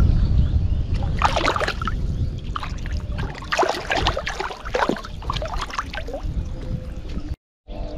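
Water splashing and sloshing in irregular bursts as a hooked catfish thrashes at the surface on a fishing line.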